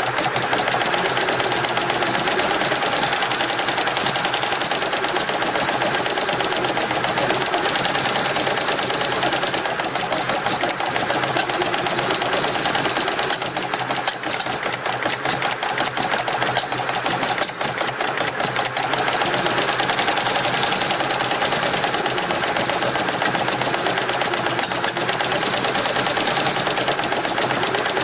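Richpeace roll-to-roll embroidery machine running, its needle head and sequin attachment stitching sequins onto fabric with a fast, steady mechanical clatter.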